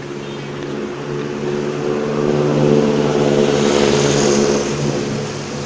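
A large bus passing close by, its engine drone swelling to its loudest about three to four seconds in and easing off near the end.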